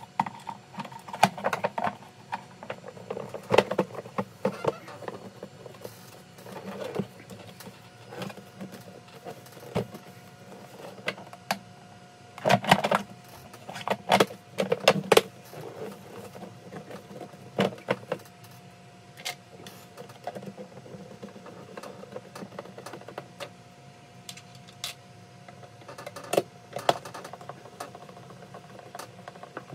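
Irregular clicks, knocks and short rattles of an e-bike battery pack and its casing being handled and fitted back together during reassembly.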